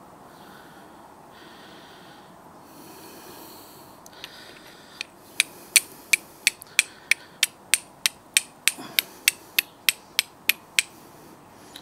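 Steel striker on flint, sending sparks onto charcloth to catch an ember: about nineteen sharp, quick strikes at roughly three a second, after a few seconds of soft handling rustle.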